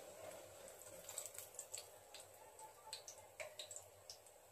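Faint, irregular crackling of hot oil in a frying pan around breaded potato rolls that are done frying.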